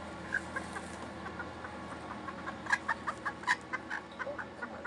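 Belgian Bearded d'Anvers bantam hens clucking: a run of short clucks that comes thicker and quicker from about halfway through.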